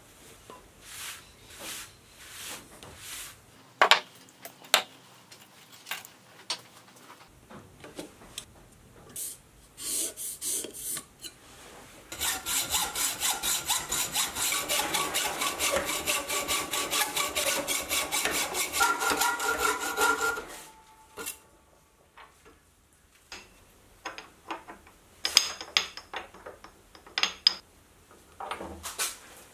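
Hand hacksaw cutting a metal plate clamped in a vise, an even back-and-forth rhythm of about three strokes a second lasting some eight seconds in the middle. Before and after it, scattered sharp clicks and knocks of metal parts being handled and set in a vise.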